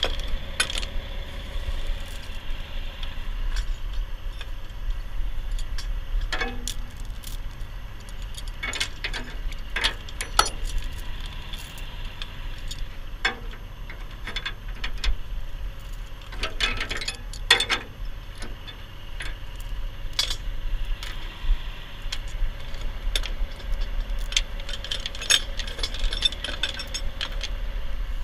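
Steel tow chain clinking and rattling in irregular clusters as it is handled and hooked onto a truck's body, over a steady low rumble.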